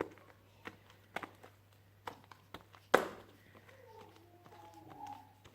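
A few scattered sharp knocks and taps, the loudest about three seconds in, with faint voices in the background in the second half.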